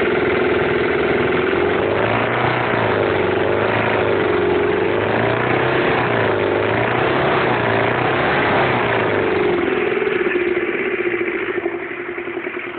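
Old Gemini's four-cylinder diesel engine idling, then revved up and down in a string of short blips from about two seconds in before settling back to a steady idle.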